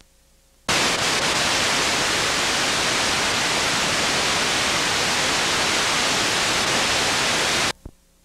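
Loud, even static hiss from a blank or damaged stretch of old videotape. It starts abruptly under a second in and cuts off suddenly near the end.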